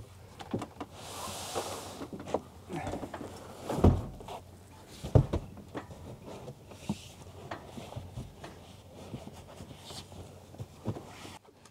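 Handling noises from a pull-out wooden slatted bed and its mattress: rustling and scraping, two heavy thumps a few seconds in as a person climbs onto the bed, then scattered knocks and fabric rustling as the sheet is smoothed.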